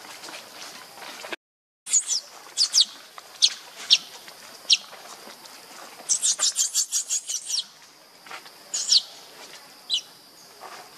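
High-pitched animal chirps, each a quick downward sweep: single calls spaced a second or so apart, and a fast run of about ten in the middle. The sound drops out completely for half a second about a second and a half in.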